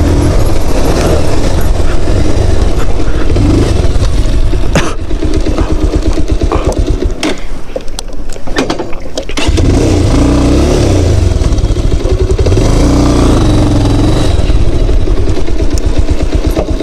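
Motorcycle engine running under changing throttle on a rough dirt track, its pitch rising and falling, with scattered sharp knocks. The engine eases off for a second or two a little past halfway, then pulls again.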